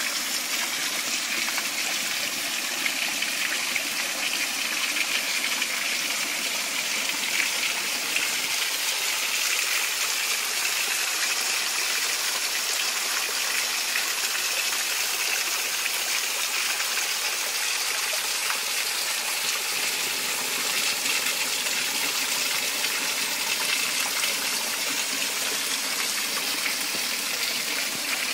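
Small waterfall spilling down a rock face into a shallow pool: a steady, unbroken splashing rush of water.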